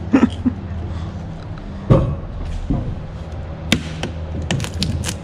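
Knocks and clicks as a jet-ski jet pump is worked and pulled loose from the fibreglass hull, where it is stuck tight in its fittings. There is a sharp knock about two seconds in and a cluster of clicks near the end, over a steady low hum.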